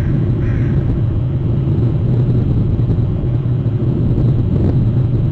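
Steady low rumble of outdoor background noise on a nest camera's microphone, with a faint bird call about half a second in.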